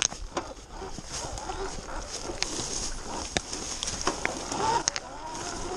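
Sur-Ron Light Bee X electric dirt bike ridden hard over a rough trail: the electric motor's whine rises and falls with the throttle, strongest near the end. Over it come a rattle of chain and suspension and many sharp clicks and knocks as the bike runs over the bumpy ground.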